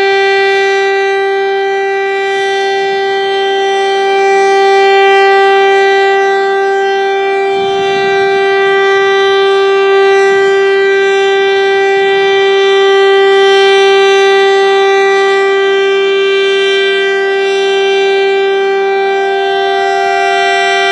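Federal Signal STL-10 single-tone outdoor warning siren sounding its scheduled monthly test: one loud, steady tone held at full pitch, swelling and easing slightly in loudness.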